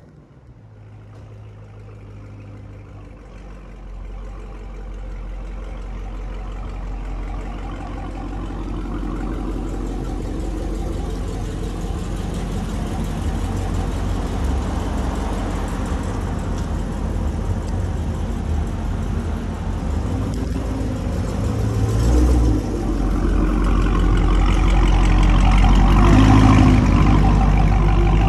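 Dodge Charger SRT Hellcat's supercharged 6.2-litre HEMI V8 idling through a newly fitted Corsa cat-back exhaust, a steady deep note that grows louder, with a short rise in the note about three-quarters of the way through.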